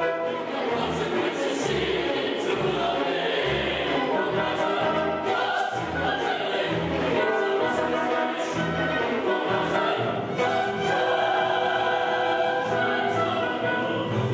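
Mixed choir singing with a string orchestra, performing a chorale.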